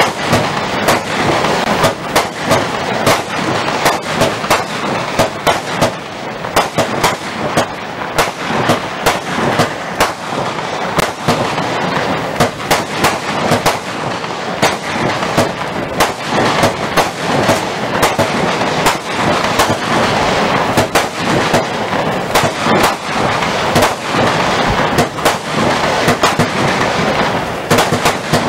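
Lesli 'Blast Off' 64-shot fireworks cake firing: a rapid, unbroken volley of shots and bursts, several a second, over a constant crackle from its crackling stars.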